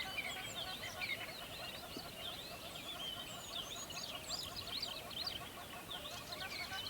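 A chorus of many birds chirping and singing over each other, with quick high chirps and trills and lower, rapidly repeated calls underneath, over the faint steady rush of a river.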